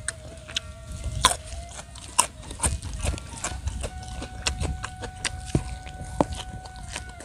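Close-up eating sounds: irregular wet chewing and mouth clicks from a man eating rice and raw vegetables, over a low rumble of wind on the microphone.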